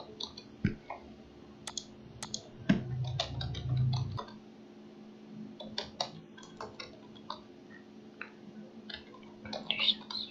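Computer keyboard typing and mouse clicks: irregular sharp key taps and clicks over a faint steady hum, with a low rumble lasting about a second and a half about three seconds in.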